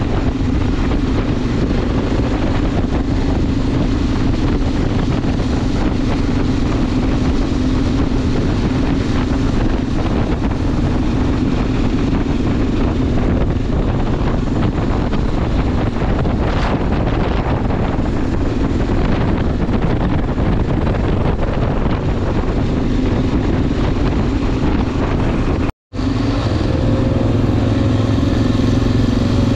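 Enduro motorcycle engine running steadily while riding off-road, with a rush of wind and terrain noise over it. Near the end the sound cuts out for a moment, then the engine comes back with a smoother, more evenly pitched note.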